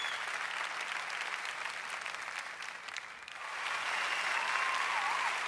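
Crowd applause, a dense, steady clapping that dips briefly a little past halfway and then swells again.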